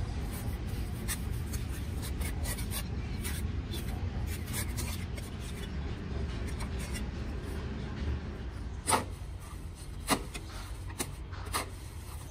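Steel trowel scraping and smoothing wet cement mortar in short strokes against cement, over a steady low rumble. In the second half the trowel digs into mortar in a wheelbarrow, and there are several sharp knocks.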